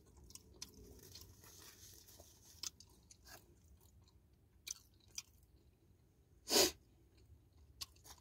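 A person chewing a mouthful of bacon chicken croissant sandwich, with faint wet mouth clicks. A short louder burst of noise comes about six and a half seconds in.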